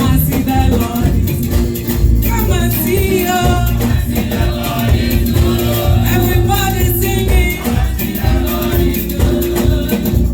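Live gospel praise music from a church band, with heavy bass, a steady percussive beat and voices singing along.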